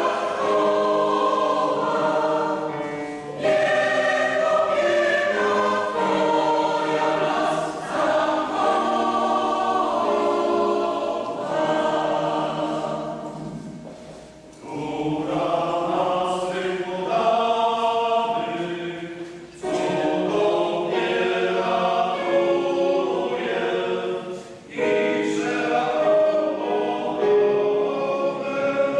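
Choir singing a Polish hymn in harmony, in long held phrases with short breaks between them, accompanied by an electric keyboard.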